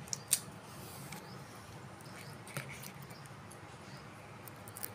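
Faint handling noise from a small wireless lavalier microphone being turned over in the fingers: a few small clicks and taps over a steady low hiss. The loudest click comes just after the start.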